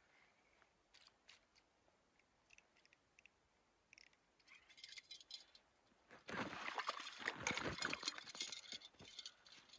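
Faint clicks and handling noise from a short ice-fishing rod and reel being worked by hand, with a louder stretch of crunching and ticking lasting about three seconds in the second half.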